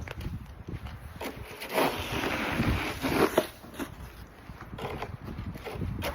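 Snow shovel scraping along the driveway as it pushes and drags snow, in a few long strokes, with crunching underfoot.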